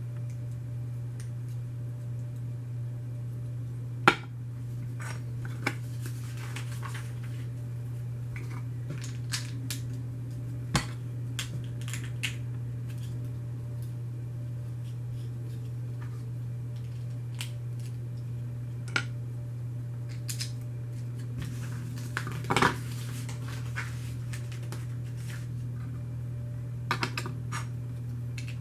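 Plastic Lego pieces being handled and snapped together: scattered light clicks and clatters, the sharpest a few seconds in and a short cluster in the last third, over a steady low hum.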